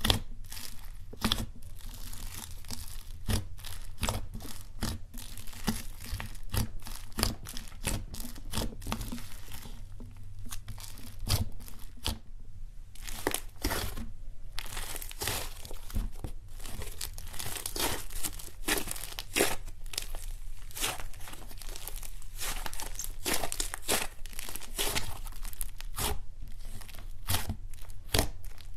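Fluffy slime squished, pulled and stretched by hand, giving a run of irregular crackles, tearing sounds and small pops that thin out for a few seconds about ten seconds in.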